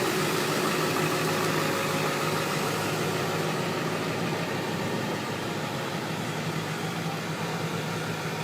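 An engine idling steadily, a constant low hum that fades slightly.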